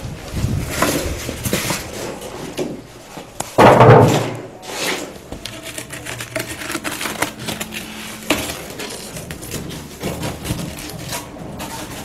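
Packing being stripped off a new refrigerator: irregular rustling and scraping of plastic and foam sheets, with a sudden loud bump about three and a half seconds in.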